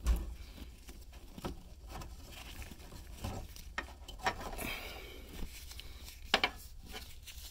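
Small scattered clicks and taps of a screwdriver prying the tangs on plastic fuel-line retaining clips and pushing the clips off the fuel pump module's plastic line fittings, with gloved hands handling the parts. The sharpest is a quick pair of clicks about six and a half seconds in.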